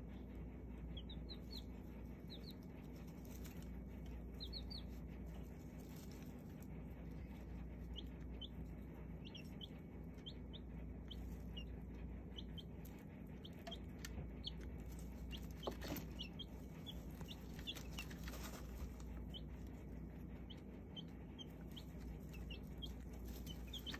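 Baby chicks peeping: short, high peeps come singly and in quick runs throughout. A sharp tap stands out about two-thirds of the way through.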